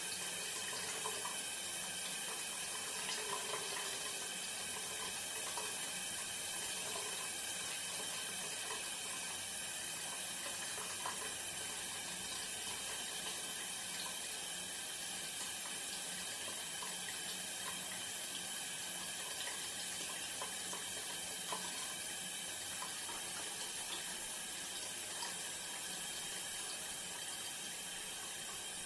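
Bathroom shower running, a steady spray of water from the showerhead.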